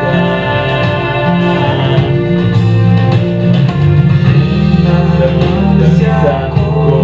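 Music: a voice singing with instrumental accompaniment, in long held notes.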